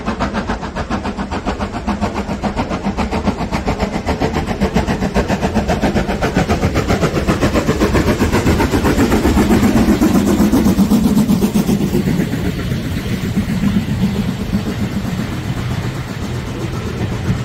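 Ivatt Class 2MT 2-6-2 tank steam locomotive working hard with a train, its exhaust beating rapidly and evenly, loudest as it passes about ten seconds in; then the carriages roll past.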